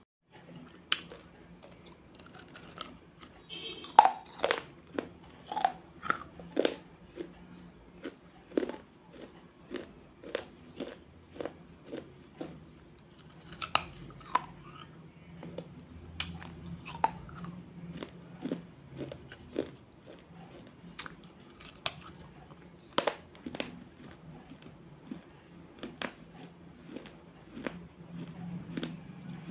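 Close-miked mouth biting and chewing something hard and brittle, with sharp, irregular crunches about one or two a second, the loudest about four seconds in.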